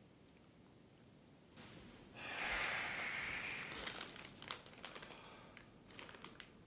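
A plastic crisp packet being handled: a dense burst of crinkling starting about two seconds in and lasting a couple of seconds, followed by scattered crackles as the bag is rustled.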